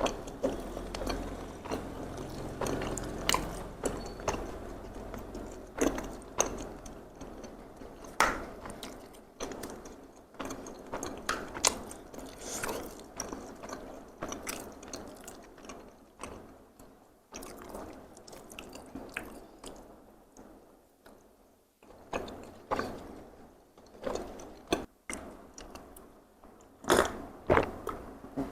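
Close-miked chewing of takoyaki: irregular wet mouth smacks and clicks, thinning out to a quieter stretch partway through before picking up again near the end.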